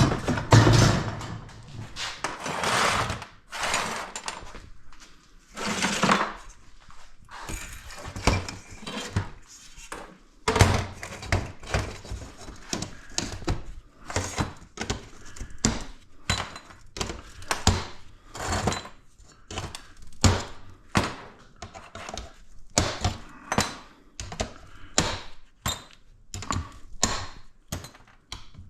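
Scrap metal being handled and worked apart by hand: an irregular run of sharp knocks and clanks, at times several a second, with a few longer scraping sounds in the first few seconds.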